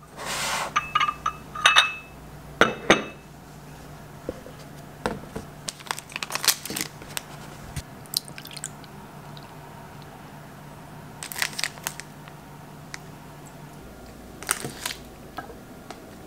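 Small tabletop handling sounds: crinkling of Choco Pie snack wrappers and light clicks and knocks of a glass and plate, some ringing briefly. They come in scattered clusters over a low steady hum that stops near the end.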